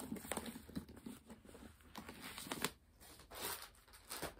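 Wrapping around a bag's shoulder strap rustling and crinkling as it is handled, in short irregular scrapes and faint clicks.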